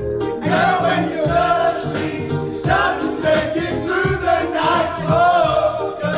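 Several men singing together over a pop backing track with a steady drum beat and bass line.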